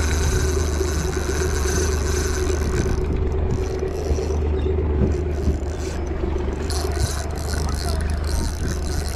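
Outboard motor running steadily under a low rumble of wind and hull noise, with a spinning reel whirring in two stretches as a hooked fish is fought: the first stops about three seconds in, and the second starts near seven seconds.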